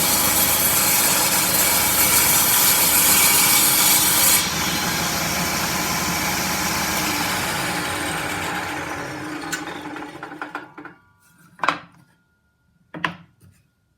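Table saw cutting through wood. About four seconds in, the loud cutting noise drops off suddenly, and the saw winds down over the next several seconds. Two short knocks follow near the end.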